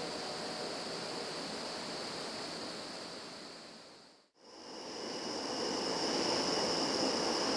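Steady rumbling noise of a train passing at a distance, fading out about four seconds in. After a brief silence the next recording fades in with more train noise and a steady high-pitched buzz.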